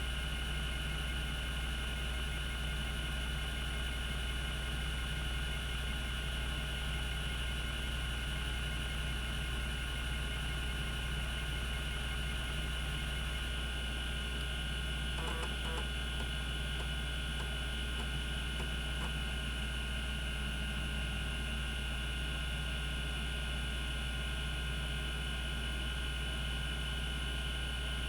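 Cogito Systems CG-912 10 MB 5.25-inch hard disk spinning at speed, a steady hum with a high whine over it. A few faint ticks come about halfway through.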